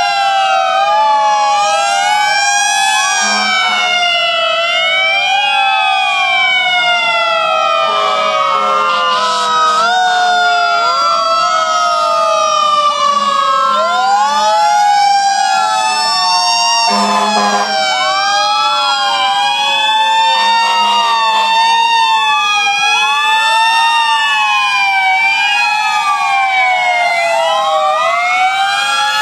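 Sirens of several fire engines sounding at once, their wails overlapping and rising and falling, some winding slowly down in long falling tones. A brief blast cuts in a little past halfway.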